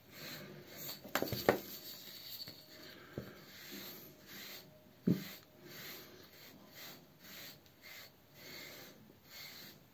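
Repeated rubbing strokes of a small handheld wooden grooming brush drawn through a full beard, about two strokes a second. There are a few sharp clicks about a second in and another near the middle.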